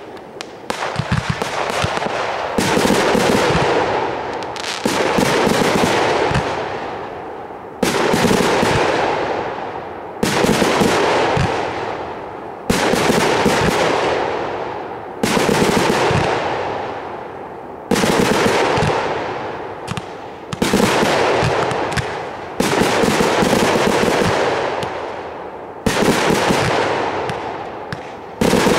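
Fireworks going off in volleys about every two and a half seconds. Each volley is a sudden loud burst followed by dense crackling that fades over about two seconds.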